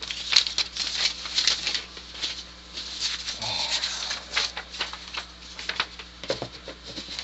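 Magazine paper rustling and crinkling as loose pages and cut-out pictures are picked up and handled, in quick, irregular rustles.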